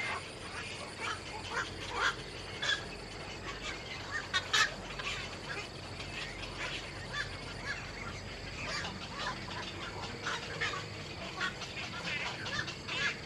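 Birds calling: many short, repeated calls scattered throughout, the loudest cluster about four and a half seconds in.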